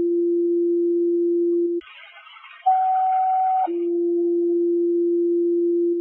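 Fire dispatch two-tone sequential alert tones over a scanner radio: a low steady tone ends, a short hiss of radio static follows, then a higher tone sounds for about a second and drops into a longer low tone. These are tones paging fire units ahead of a dispatch call.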